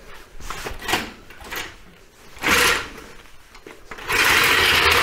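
Metal scraping and knocking from the MGB's steering shaft being pulled forward out of its coupling: a few short scrapes, a louder scrape about two and a half seconds in, and a longer scrape of over a second near the end.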